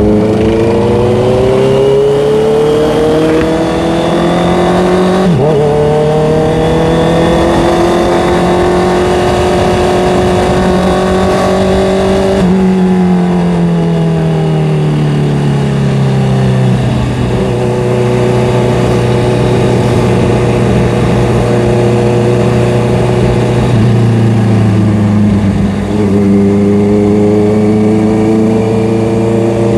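Honda CBR650R inline-four engine under way, heard on board: it revs up through the gears with quick shift breaks about five and twelve seconds in, then eases off and falls in pitch before running at a steady cruise, with another gear change near the end, over steady wind and road noise.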